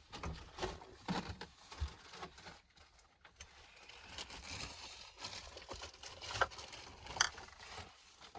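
Light rustling with scattered soft clicks and knocks, the sound of small objects being handled.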